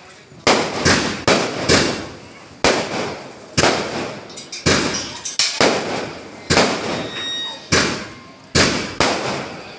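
Skyshot fireworks bursting one after another: a rapid string of sharp bangs, roughly one or two a second, each fading away quickly.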